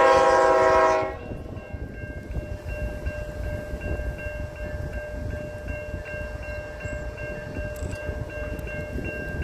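Air horn of a GE ET44AC diesel locomotive sounding one chord blast about a second long at the start, followed by the low rumble of the freight train approaching.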